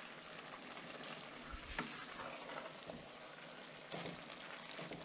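A pot of bigos, a thick pork and sauerkraut stew, simmering in a stainless steel pot with a steady faint bubbling hiss. Toward the end a wooden spoon stirs it, with a couple of light knocks.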